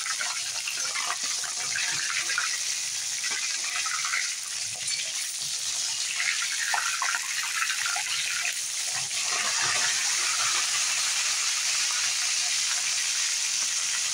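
Katla fish steaks sizzling steadily in hot mustard oil in a kadai, with a few spatula scrapes and taps in the middle as the pieces are turned over.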